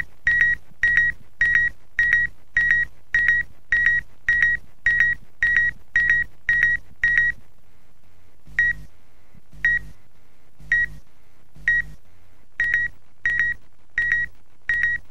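Electronic beeps: short, identical high tones, each with a low hum beneath it. They repeat about twice a second, then about halfway through slow to roughly one a second at uneven gaps.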